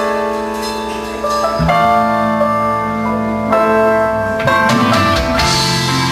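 Live prog rock band playing an instrumental passage of held chords on guitar and keyboard. Bass notes come in about a second and a half in, and cymbals wash in near the end.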